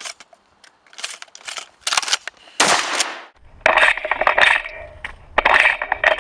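Shotgun shells being pulled from belt shell caddies and pushed into a pump-action shotgun's magazine tube: a quick run of clicks, clacks and scrapes of shell and hand against the loading port. A low rumble comes in about halfway through.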